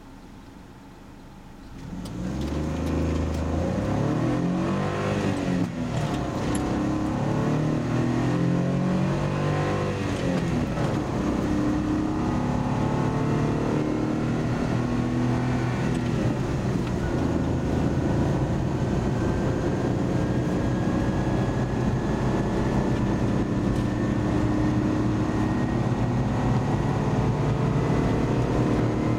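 Car engine and road noise heard inside the cabin. It is quiet at first, then about two seconds in the car pulls away. The engine pitch climbs and drops back twice as it shifts up, then settles into a steady cruise with tyre noise.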